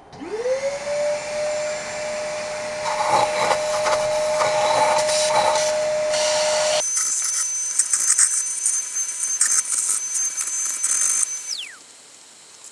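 Workshop vacuum cleaner with a small hose on its end, sucking dirt out of diesel injector bores and seats: it switches on with a quickly rising whine and runs steadily with irregular crackles. After an abrupt change about seven seconds in it runs with a higher whine, then is switched off near the end, the whine falling away.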